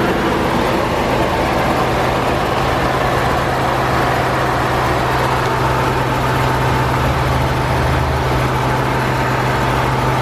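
Ford F-150's 3.5-litre twin-turbo V6 idling steadily, heard close up under the open hood, with a rattling noise that the buyer thinks sounds like a belt.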